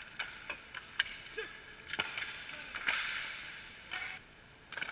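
Sharp clacks of hockey sticks and a puck striking the floor, pads and each other during inline hockey play, scattered irregularly, with a rushing scrape of skates close by about three seconds in.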